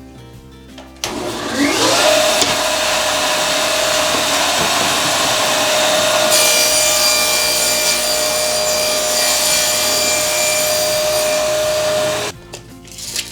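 Table saw switched on: the motor and blade wind up with a rising pitch, then run at speed with a steady whine. The sound turns brighter about six seconds in, then cuts off abruptly near the end.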